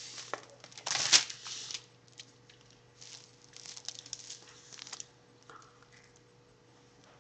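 A sheet of paper rustling and crinkling as it is handled and put down, in short bursts, loudest about a second in, with a second run of lighter rustles a little later.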